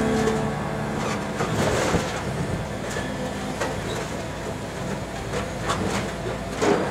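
Case CX225SR excavator's diesel engine running while its bucket works crushed cars down into a scrap trailer, with scattered clanks and scrapes of sheet metal and a louder clank near the end.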